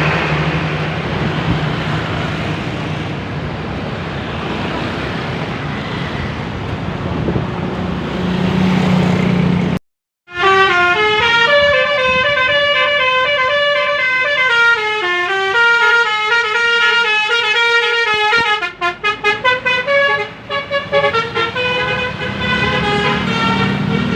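A passing bus's engine and road noise for about the first ten seconds. Then, after a brief break, a bus's multi-trumpet 'telolet basuri' air horn plays a melody, its notes stepping up and down in pitch and turning short and choppy about two-thirds of the way through.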